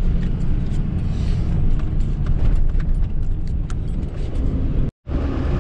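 Pickup truck driving on a rough dirt road, heard from inside the cab: a steady low rumble with scattered rattles and knocks. The sound drops out for an instant near the end.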